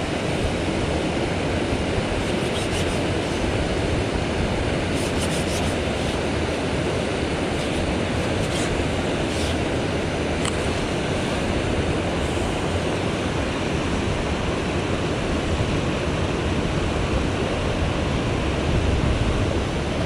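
Steady rush of a mountain stream's flowing water, with a few faint clicks around the middle.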